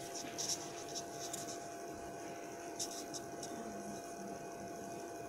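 Steady hum with a thin high whine from a Canon C5535 copier running while it installs new firmware, with a few faint short rustles over it.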